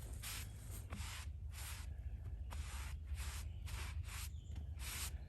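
A brush sweeping sawdust off a chainsaw-milled cedar slab: short swishing strokes at an irregular pace, about two a second, over a low steady rumble.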